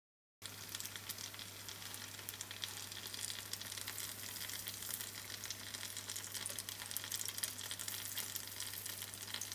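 Sugar-coated banana spring rolls (turon) frying in hot oil in a pan: a steady sizzle with dense crackling that starts about half a second in. A low steady hum runs underneath.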